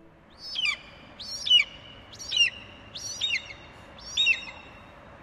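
A bird calling five times, about once a second, each call a short sharp note falling in pitch.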